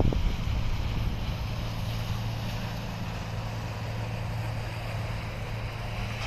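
Steady low hum of a large container ship's engines as it sails out of the harbour, over a light wind hiss.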